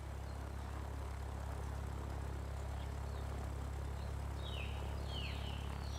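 Steady low background drone, with a few faint, short falling chirps near the end.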